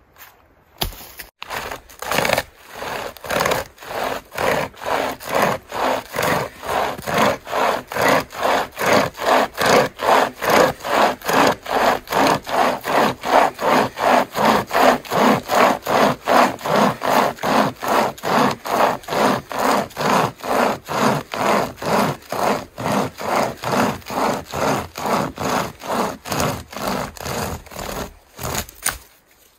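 Nordic Pocket Saw, a hand-pulled pocket chainsaw (a length of cutting chain with a handle at each end), sawing through a log in steady rasping strokes, about two a second. The strokes start a couple of seconds in and stop shortly before the end.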